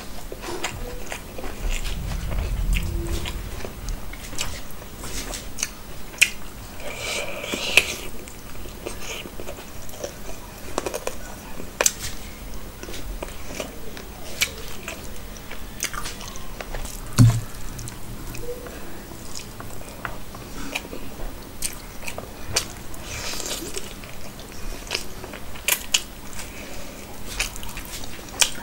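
Close-miked eating sounds: chewing with frequent short wet smacks and clicks as rice and curry are eaten by hand, fingers working through the rice between mouthfuls.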